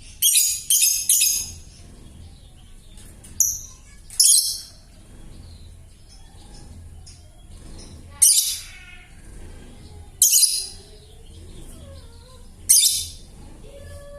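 Young lovebird giving short, harsh, hoarse calls: three in quick succession near the start, then single calls every couple of seconds. The raspy, cracked voice is that of a juvenile lovebird whose chatter has not yet cleared.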